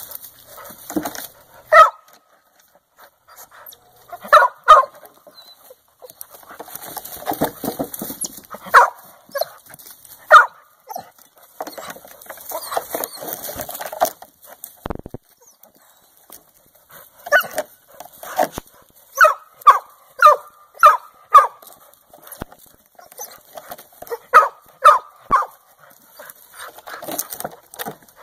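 Two dogs, a West Highland white terrier and a beagle-rottweiler mix, barking and yipping in quick runs of short, high barks, excited at a chipmunk hiding in a log. Between the runs comes a rustling of dry leaves and twigs.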